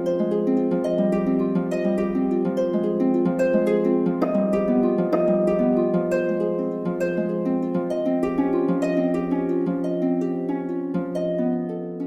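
Background music of plucked harp notes in a quick, even pattern.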